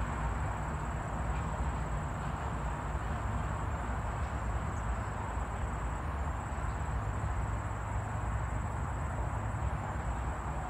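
Steady outdoor background noise: a low, even rumble with a continuous thin, high-pitched buzz above it.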